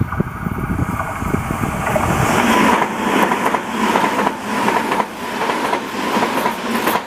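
TOMIX N-gauge Tobu 100 series Spacia model train running along the track: a steady motor whine with repeated clicking of the wheels over the rail joints, getting louder about two and a half seconds in as it comes closer.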